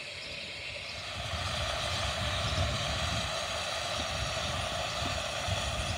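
Standing 15-inch gauge Romney, Hythe & Dymchurch Railway steam locomotive, steam hissing steadily over a low uneven rumble, louder from about a second in.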